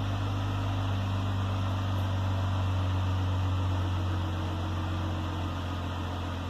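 2017 Jeep Wrangler's 3.6-litre Pentastar V6 idling steadily through a newly fitted Dynomax axle-back exhaust, heard at the tailpipe, with the low, throaty note the new system gives.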